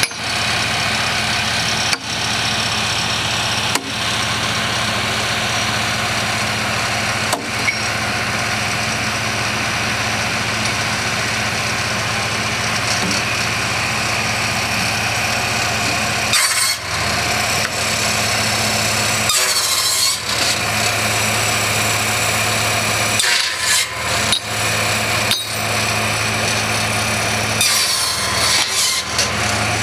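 A tractor engine runs steadily, powering a red PTO-driven wood-processing machine. In the second half the machine cuts into timber in four or so harsh bursts, and a few sharp knocks of wood being struck come in the first few seconds.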